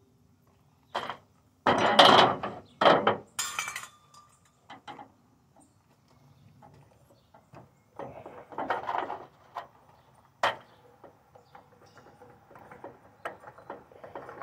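Clinks, scrapes and knocks of chandelier parts being twisted and worked apart by hand: metal arm pieces and a porcelain light socket. The busiest run of scraping comes about two to four seconds in, another about eight seconds in, then a single sharp knock a little later and light clicks after it.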